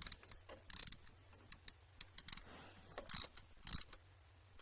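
Irregular metallic clicks and knocks from hand tools and parts being handled during a moped repair: about a dozen short, sharp hits at uneven intervals, with no steady rhythm.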